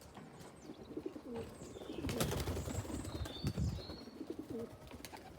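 Pigeons fluttering their wings close by, loudest from about two to four seconds in, with a few short high chirps and clicks.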